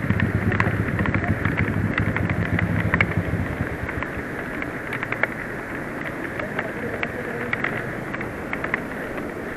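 A Honda CS1 motorcycle engine running at low speed and dying away about three and a half seconds in, under a steady hiss of rain with scattered drops pattering close by.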